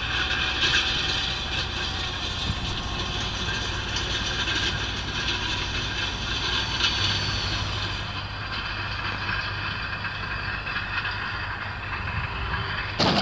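Twin electric ducted fans of a large RC jet airliner model, heard as a steady hiss as the model flies and then comes in low, over a low rumble of wind on the microphone. A sudden burst of noise comes right at the end.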